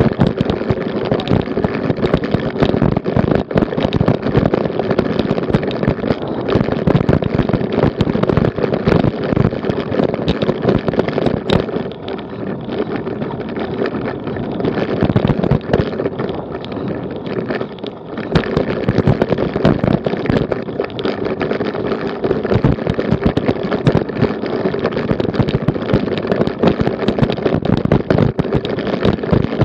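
A road bicycle rattling over cobblestones, heard through an action camera riding along with it: a dense, continuous clatter of wheels and frame jolting on the stones. It eases for a few seconds about halfway through, then picks up again.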